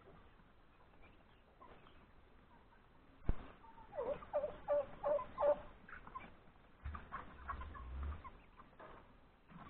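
Chickens clucking: a sharp knock, then a quick run of about five short clucks. A low rumble follows a little later.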